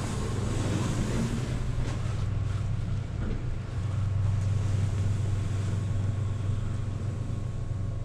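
A steady low mechanical hum, with some light rustling in the first couple of seconds.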